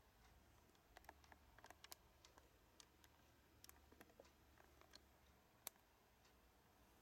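Near silence in a small room, broken by faint, irregular clicks and ticks, the sharpest about two-thirds of the way in.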